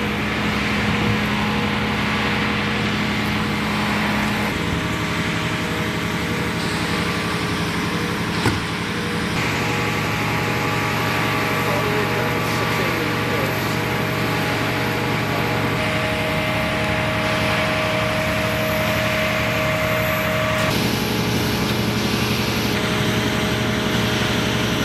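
Engine running steadily with a constant hum, its tone shifting abruptly a few times, and one sharp knock about a third of the way through; faint voices underneath.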